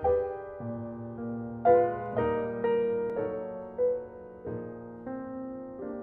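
Solo piano playing a slow ballad: chords struck roughly once or twice a second and left to ring and fade.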